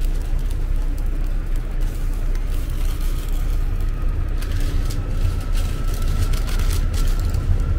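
A steady low rumble throughout, with paper crinkling from about halfway on as the griddled pizza crepe is slipped into a paper wrapper.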